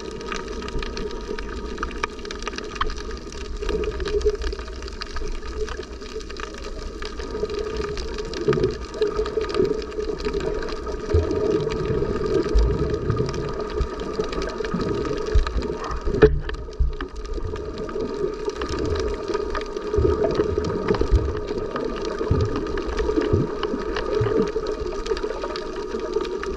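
Water sound as picked up by a snorkeling camera, gurgling and muffled, with a steady engine hum running through it.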